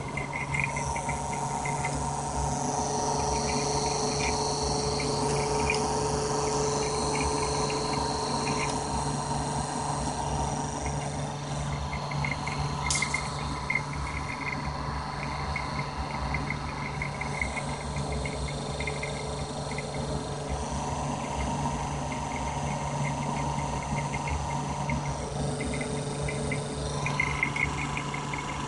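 Home-built pulse motor running: its spinning rotor and pulsed coils give a steady hum with a high whine that fades in and out, and a rapid buzzing chatter of ticks that comes and goes.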